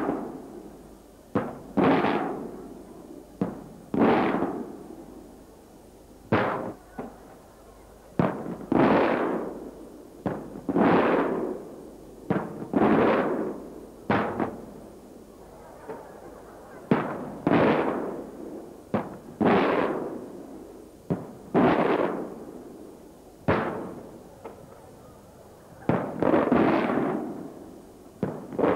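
Traditional Maltese aerial firework shells bursting one after another: sharp bangs every one to two seconds, often in close pairs, each trailing off in a long rolling echo.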